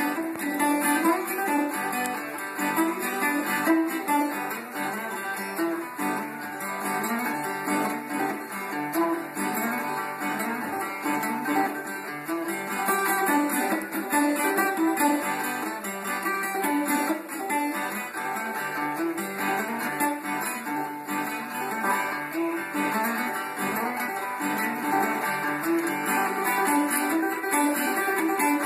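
Homemade box-bodied guitar played continuously, with picked notes over a steady low drone.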